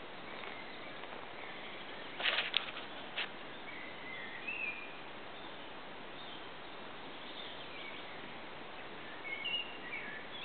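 Songbirds singing in short chirps and warbles over a steady hum of road traffic. A few sharp clicks about two to three seconds in are the loudest sounds.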